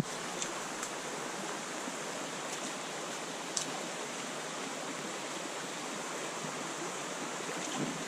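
Small rocky creek running steadily, an even wash of flowing water, with a few light clicks.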